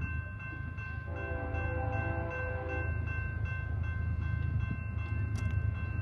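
Railroad crossing bell ringing at an even pace, about two and a half strokes a second. About a second in, an approaching BNSF freight locomotive's air horn sounds one long chord of nearly two seconds, over a low rumble.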